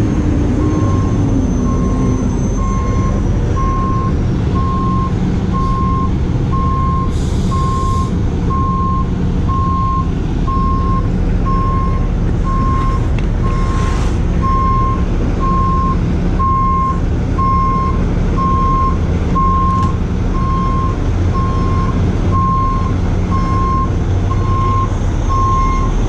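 Heavy truck's backup alarm beeping steadily, about one beep every three-quarters of a second, over the steady low running of a heavy diesel truck engine.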